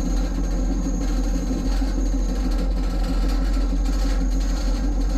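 Moving train running along the track: a steady low rumble and drone with constant tones held throughout.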